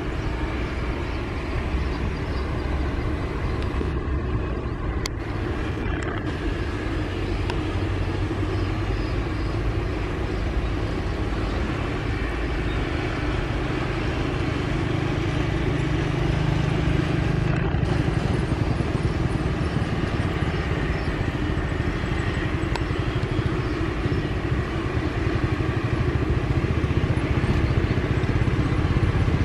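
Twin-turboprop military transport aircraft running its engines on the runway: a steady propeller-engine drone whose low hum steps up in pitch about twelve seconds in and grows louder toward the end.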